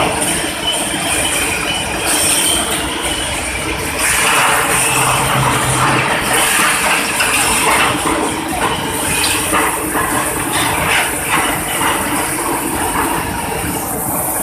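Hot steel rolling mill running: loud, steady machinery noise with a low hum, and irregular metallic clanks and rattles from about four seconds in, from the powered roller table carrying red-hot steel bar.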